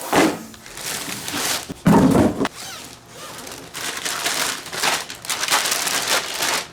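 Rustling and handling of packaging as a boxed inflatable kayak is unpacked, with a dull thud a little under two seconds in.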